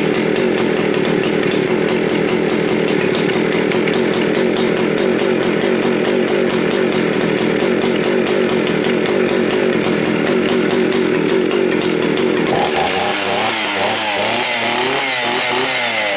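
1970s Stihl 041 Super two-stroke chainsaw running loud and steady at high speed. About twelve and a half seconds in, the engine speed starts swinging up and down and a high hiss joins in.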